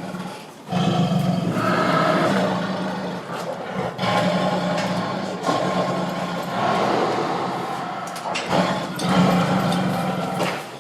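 Tiger roaring: a run of long, loud roars, each lasting about three to four seconds, with short breaks between them.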